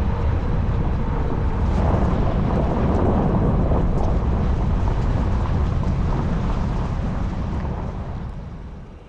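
Loud, steady rumble of wind and road noise from a moving car, fading away over the last couple of seconds.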